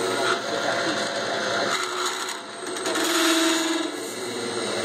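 Metal lathe running while a drill bit held in the tailstock chuck bores into the spinning metal workpiece, cutting continuously. The noise dips briefly a little past halfway, then swells with a short low whine.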